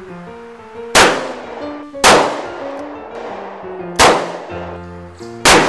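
A revolver fired four times at uneven intervals, about a second, two, four and five and a half seconds in, each shot sharp and trailing off, over ragtime piano music.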